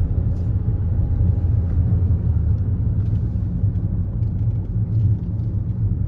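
Steady low rumble of a moving car's engine and tyres, heard from inside the cabin.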